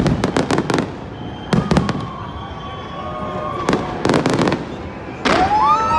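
New Year fireworks going off in three quick volleys of sharp bangs and crackles. Near the end the crowd's shouts and whoops rise sharply.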